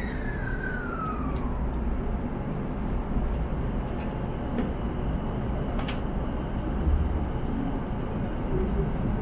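Electric commuter train pulling away from a platform: a low rumble of the running gear that builds slowly, with a whine falling in pitch over the first second and a half and a couple of sharp clicks about five and six seconds in.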